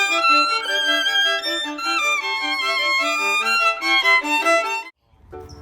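Instrumental music: a quick melody with a repeating lower line. It cuts off abruptly about five seconds in, and a low rumble comes in just before the end.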